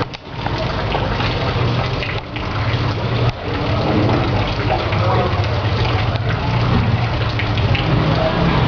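Steady rushing outdoor noise with indistinct voices mixed in, broken by two short dips in level in the first few seconds.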